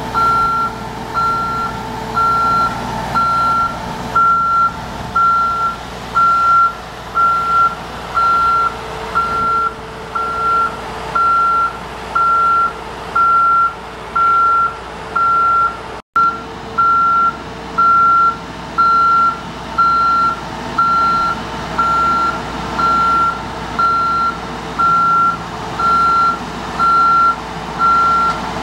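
JLG 450AJ boom lift's motion alarm beeping steadily about once a second, one high tone per beep, as the boom is operated to raise the basket. The machine's Ford four-cylinder engine runs underneath.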